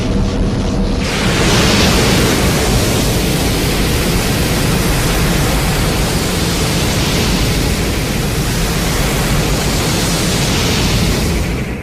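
A loud, steady rushing noise, a monster-film sound effect, with a faint low hum in its first second that widens into a dense hiss lasting about twelve seconds before cutting off.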